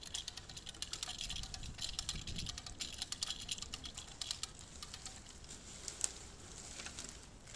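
Hand-operated winch ratcheting as it tensions the rope on a leaning tree: rapid, irregular clicking that thins out about halfway through, with one sharper click near the end.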